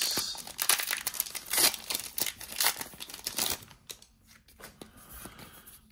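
A foil trading-card booster pack wrapper being torn open and crinkled in the hands, a dense crackling for about the first three and a half seconds before it dies down.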